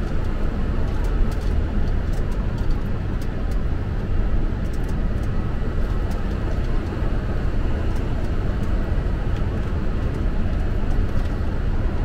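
Steady low rumble of airflow and engine noise on a Boeing 747 flight deck during the approach, with faint scattered ticks.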